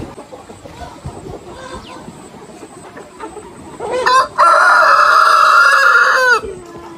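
A rooster crows once, loud, starting about four seconds in: a short rising first note, then a long held note that falls away at its end. Before it, the flock clucks and calls quietly.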